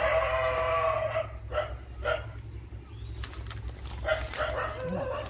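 A dog barking: one long drawn-out call at the start, then a few short barks and more calls later on.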